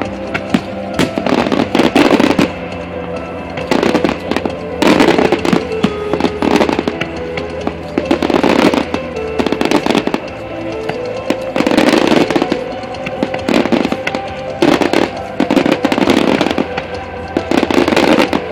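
Aerial fireworks bursting in rapid clusters of bangs and crackles, with a lull of a second or two between each cluster. Music plays throughout.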